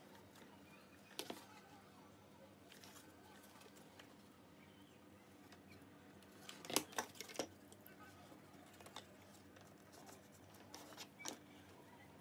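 Light clicks and taps from handling cardboard pieces and a hot glue gun, over a faint steady hum, with the loudest cluster of clicks about seven seconds in.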